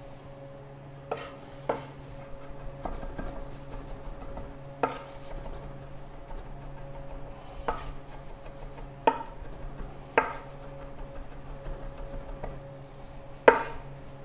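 A chef's knife mincing garlic on a wooden cutting board: irregular sharp knocks of the blade striking the board, about eight strong ones with many lighter taps between. A steady low hum runs underneath.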